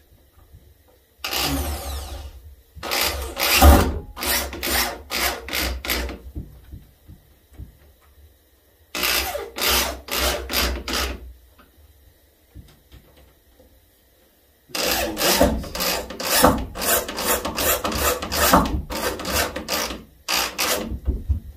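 Power drill driving screws through a deer's antler skull cap into a foam mannequin, run in four bursts of a few seconds each, the motor pulsing rapidly on and off within each burst, until the screw heads sit flush with the skull cap.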